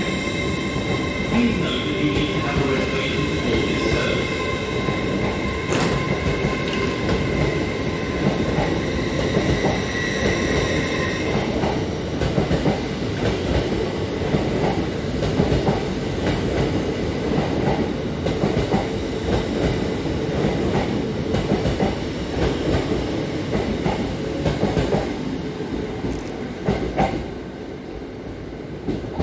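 LNER Azuma (Hitachi multiple unit) train moving along the platform and away: a rumble of wheels on rail with a steady high whine for the first ten seconds or so, then scattered clicks over the rail joints. It fades near the end as the rear cab draws off.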